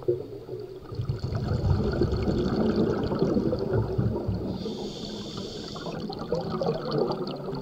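Scuba regulator breathing underwater: a rough rumble of exhaled bubbles, broken about five seconds in by the hiss of an inhale through the demand valve, then bubbling again.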